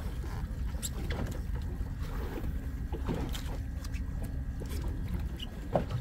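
Steady low rumble of a fishing boat underway at sea, with a few short squeaks and clicks scattered through it.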